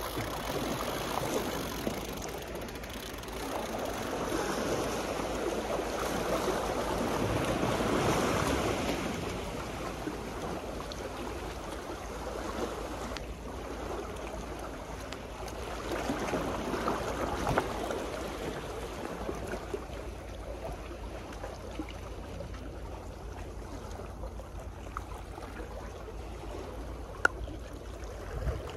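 Sea waves washing against the embankment, swelling up twice and ebbing in between, over a steady low wind rumble. A single sharp click comes near the end.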